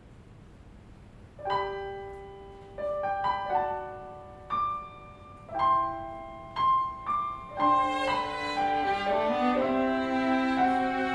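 String quartet and piano: after a moment of quiet, separate notes ring out one at a time and fade, and about seven and a half seconds in the bowed strings take over with sustained chords.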